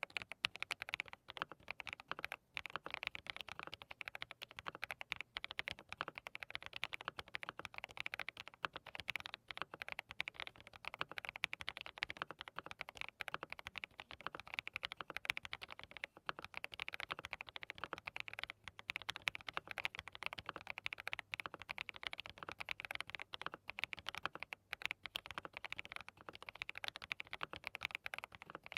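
Fast, continuous typing on a DT35 87-key custom mechanical keyboard fitted with hand-lubricated Haimu Sea Salt linear switches, a dense stream of key clacks.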